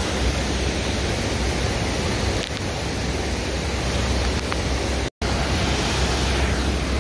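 Rushing water of river rapids: a steady, loud roar of white water. The sound cuts out for an instant about five seconds in.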